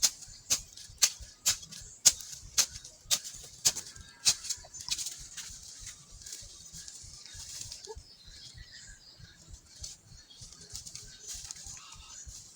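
Hand hoe chopping into soil about twice a second, the strikes giving way after about five seconds to fainter scraping and rustling.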